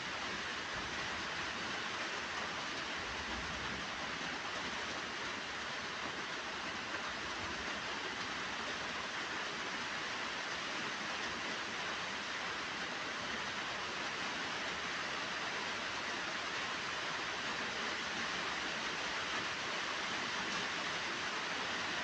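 Steady, even hiss throughout.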